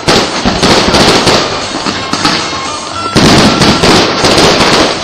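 Fireworks display going off: dense crackling mixed with bangs, loudest just after the start and again from about three seconds in until near the end.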